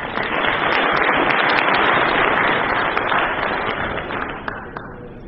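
Audience applauding. It starts suddenly, is strongest around two seconds in, and dies away near the end.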